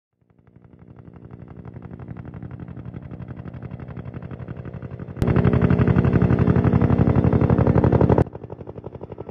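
Helicopter rotor chopping in a fast, even pulse. It fades in, turns abruptly much louder about five seconds in, and drops back just after eight seconds.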